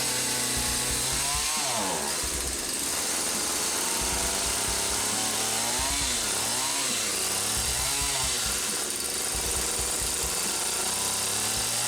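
Jonsered two-stroke chainsaw engine running, its revs rising and falling several times before it settles to a steadier speed near the end. It is running rough while its low-speed carburetor mixture is being tuned.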